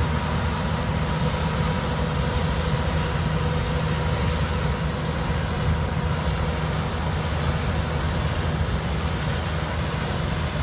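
Yanmar AW82V combine harvester's diesel engine running steadily with an even, low hum, a note the videographer calls quiet.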